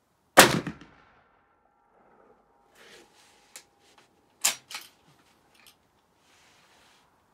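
A single rifle shot from a Mannlicher M95 straight-pull rifle, fired with a 7.62x54R cartridge in its 8x56R chamber to fire-form the case, about half a second in, with a ringing tail. Around four and a half seconds in, two sharp metallic clacks as the straight-pull bolt is worked.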